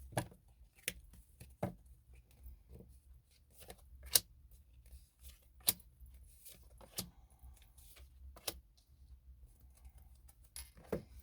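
Tarot cards being handled and laid out on a table: a series of sharp, separate card snaps and clicks at irregular intervals, with faint rustling between them.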